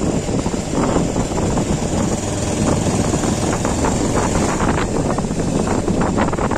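Motorcycle engine running as the bike is ridden at low speed, with wind noise on the microphone.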